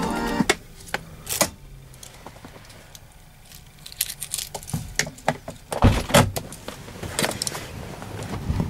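Keys jangling and clicking as the ignition key of a 2010 Hyundai H-1 van is turned off and pulled out. A few small clicks follow, then a louder clunk about six seconds in as the inside door handle is pulled and the door unlatches.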